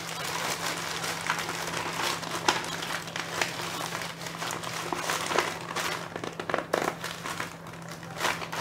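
Plastic poly mailer bag crinkling and rustling as hands handle it and pull it open, with many irregular sharp crackles.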